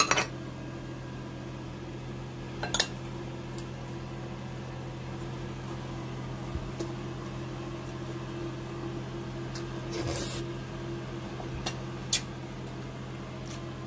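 A steady low electrical hum, like a running kitchen appliance, with a few sharp clicks and a short rustling crunch about ten seconds in.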